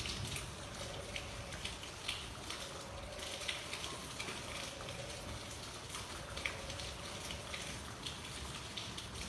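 Rain falling: a steady hiss with many sharp drop ticks scattered through it.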